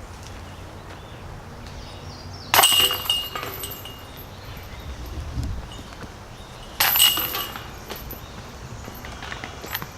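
Two putts hitting a disc golf basket about four seconds apart, each a sudden metallic crash of the chains that rattles and rings briefly before fading.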